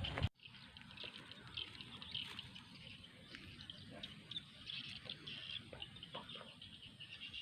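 Birds chirping faintly, scattered short calls over a soft low background rumble; a louder noise cuts off abruptly just after the start.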